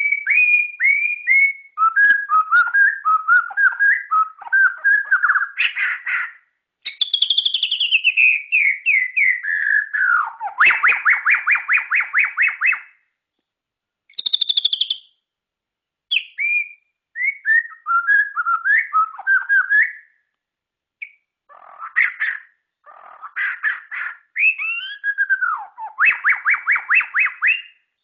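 White-rumped shama (murai batu) singing: a varied string of clear whistled phrases, with falling glides and fast runs of repeated notes, broken by short pauses.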